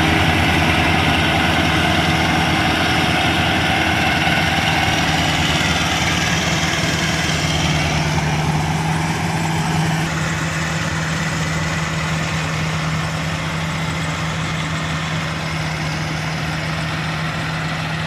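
Rice combine harvester's engine running steadily, growing a little quieter and duller in the second half.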